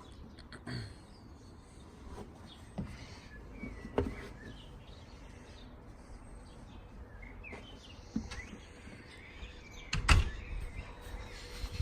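Scattered faint knocks and handling noises as a person moves about, with a louder thump about ten seconds in and occasional faint chirps in the background.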